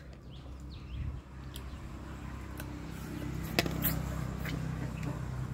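A few faint sharp clicks of small clam shells being picked from a plate and eaten, over a low steady hum.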